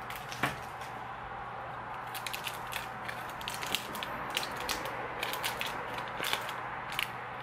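Dums Dums lollipop wrapper crinkling as it is pulled off the lollipop by hand, a string of short, irregular crackles.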